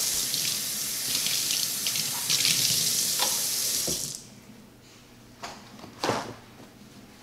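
Kitchen sink tap running in a steady stream, shut off about four seconds in, followed by a couple of light knocks.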